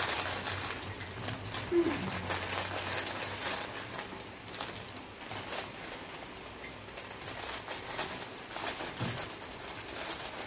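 Irregular light clicks and crinkling, as from packaging or cups being handled, with a brief low vocal sound about two seconds in.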